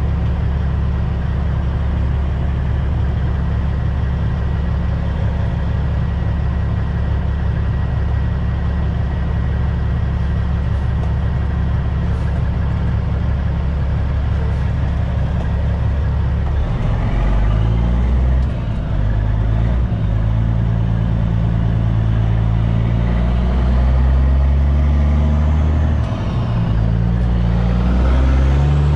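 Caterpillar C-15 diesel engine of a Kenworth T800 dump truck heard from inside the cab, running at a steady low speed for about half the time, then accelerating. Its pitch climbs and drops several times as the gears are changed.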